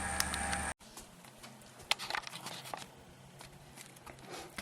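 Desktop PC running with a steady hum and whir, the odd noise its owner is trying to trace and suspects comes from the liquid-cooling radiator. It cuts off abruptly under a second in, leaving faint scattered clicks and light taps.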